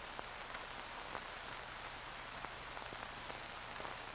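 Steady hiss with scattered faint clicks and a low hum: the background noise of an old film soundtrack.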